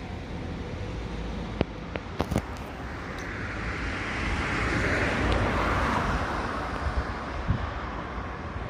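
A vehicle passing by: a toneless rush of noise that swells to a peak around the middle and then fades, with a couple of small clicks before it.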